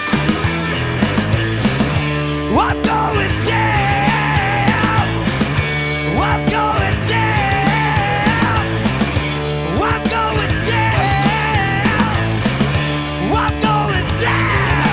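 Live rock band playing an instrumental passage: a lead line with upward slides and wavering held notes over a steady bass and drum groove.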